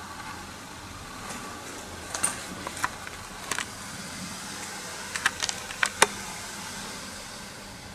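Scattered sharp clicks and cracks over a steady hiss: a few about two to three seconds in, more around five seconds, and the loudest about six seconds in.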